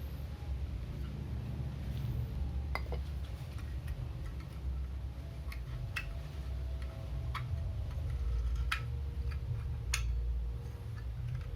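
Camping cookware clinking: about half a dozen light, sharp taps of a utensil against a metal pot or cup, some leaving a brief ring, over a steady low rumble.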